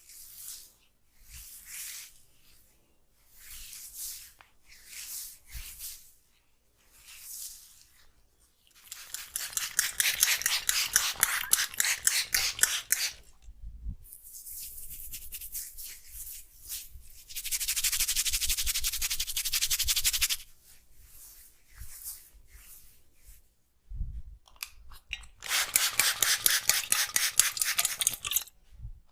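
Oiled hands rubbing through hair and scalp in a massage. Slow, separate strokes come first, then stretches of fast, vigorous rubbing.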